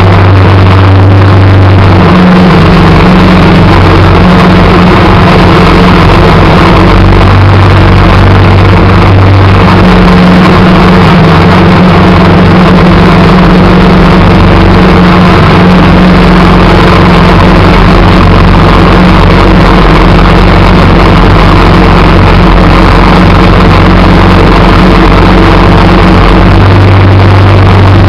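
Engine of a snow-plowing vehicle running steadily while it pushes snow, loud and close. Its note rises about two seconds in and drops back near the end.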